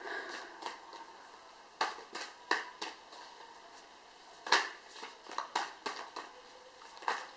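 Moonology oracle cards being shuffled by hand: a dozen or so sharp card snaps and slaps at uneven intervals, the loudest about four and a half seconds in.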